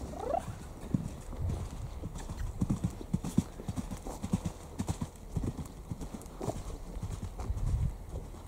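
Hoofbeats of a bay filly moving on a soft chip arena surface: irregular dull thuds, with a short rising call just after the start.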